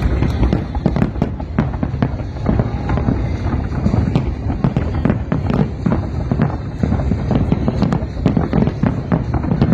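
Fireworks going off in a dense, continuous barrage of booms and crackling bangs, many overlapping, with no pause.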